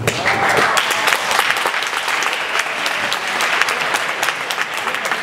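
An audience applauding in a hall, a dense clatter of many hands clapping that starts all at once right after an announcement.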